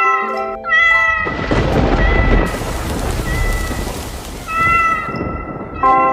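A loud, deep rumbling and rushing noise lasts about four seconds, with a cat meowing over it. It is framed by background music at the start and again near the end.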